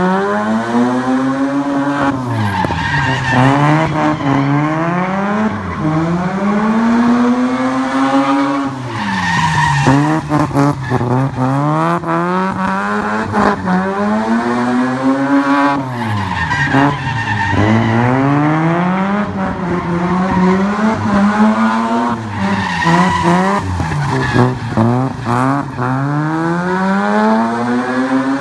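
Drift car's engine revving hard in long swells, its pitch climbing and dropping again every few seconds as the car is held sideways, with tyres skidding on wet asphalt.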